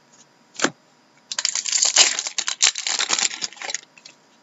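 Hockey trading cards being slid and flipped off a stack by hand. One quick swish comes just over half a second in, then about two and a half seconds of rapid papery rustling and clicking.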